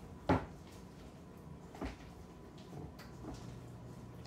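Hands working bread dough in a stainless steel mixing bowl, with one sharp knock against the bowl just after the start, a softer knock near two seconds in, and faint handling noises between.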